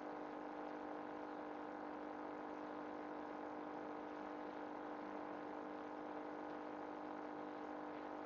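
Steady mechanical hum: a motor or fan whirring evenly at several fixed pitches, without change.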